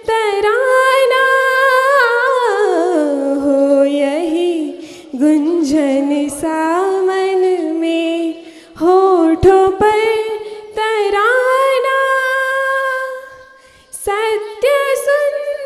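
A woman singing a Hindi song solo and unaccompanied, in long held notes with a wavering pitch, breaking off briefly a few times for breath.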